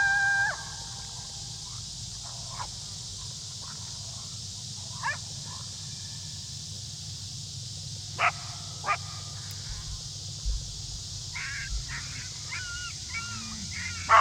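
Coyote challenge-barking at the hunters after winding them: a loud drawn-out bark-howl at the start, then short sharp barks and yips at intervals, and another long call begins near the end.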